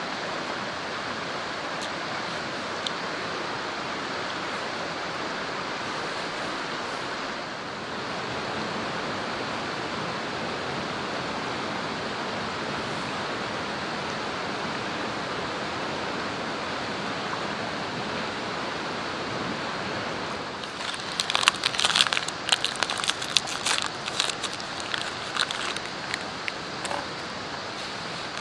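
Steady rushing outdoor noise throughout. About two-thirds of the way in, a burst of sharp crinkling and clicking as a small food packet is handled and opened.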